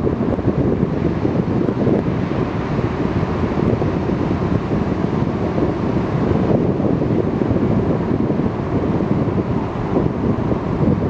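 Aboard a small boat at sea: a loud, steady rumble of wind buffeting the microphone mixed with rushing water around the hull.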